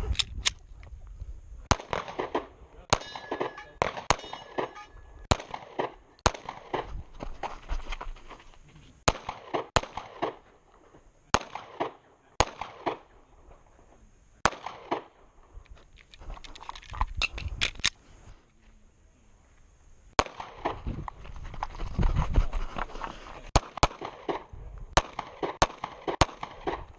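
Semi-automatic pistol fired at close range, shot after shot in quick pairs and short strings, with pauses of one to three seconds between groups.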